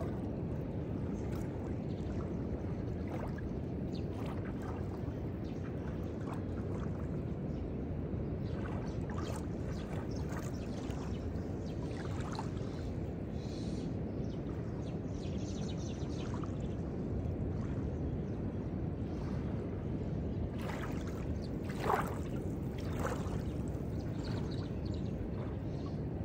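Calm lagoon water lapping gently at a sandy shoreline: small trickling splashes over a steady low rush, with one short, louder sound near the end.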